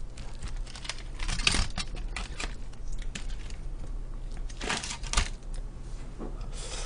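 Aluminium foil crinkling and chopsticks clicking as grilled mackerel is picked apart on its foil wrapper, in short scattered bursts, the loudest about a second and a half in and again near five seconds.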